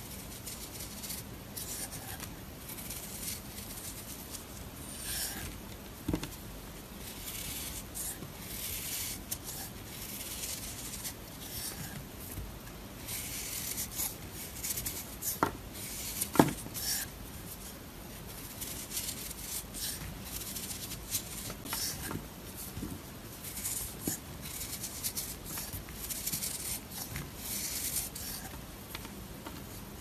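Knife blade shaving curls off a bar of dry, crumbly soap: a run of crisp scraping strokes one after another, with two sharp clicks about halfway through.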